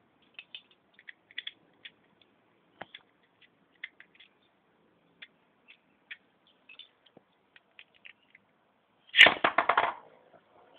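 Small plastic parts of a Beyblade top clicking and tapping as they are handled, scattered light clicks for about eight seconds. About nine seconds in, a loud rapid rattle lasting just under a second.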